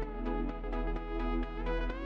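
Electronic dance music with a steady beat of about four strokes a second under sustained synth chords.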